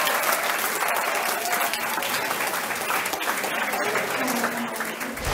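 Crowd applauding, many hands clapping in a dense, steady patter, with a few voices heard faintly within it.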